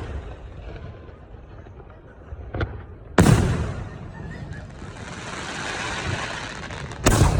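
Professional aerial firework shells bursting: a small pop about two and a half seconds in, then a loud boom followed by a few seconds of high hiss, and another loud boom near the end.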